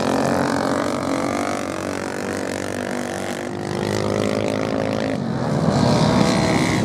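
Racing motorcycle engines at speed, their pitch rising and falling as the bikes pass, growing louder near the end.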